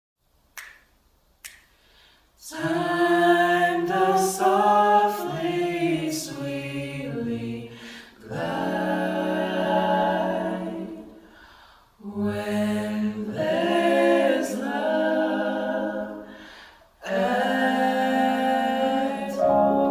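Unaccompanied voices singing a song together in harmony, in long phrases with short breaks between. The first two seconds are nearly silent apart from a couple of faint clicks before the singing begins.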